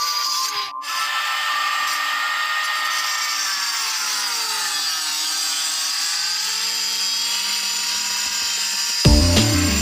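Handheld electric marble cutter with a diamond blade cutting black granite: a steady high whine over a gritty hiss, with a short break about a second in and the pitch sagging in the middle before recovering. Music with a heavy bass beat comes in near the end.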